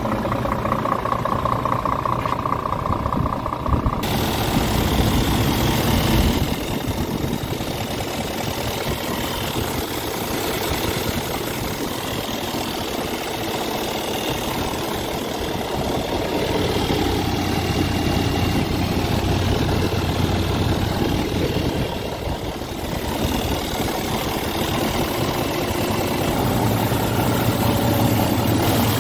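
Scania R tractor unit's inline diesel engine idling steadily, heard close up at the open engine bay.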